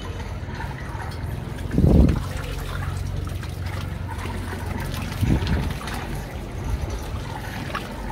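Water sloshing and trickling in a small backyard pool as Rottweiler puppies paddle around a man lying in it, with two louder sloshes, about two seconds in and again around five seconds.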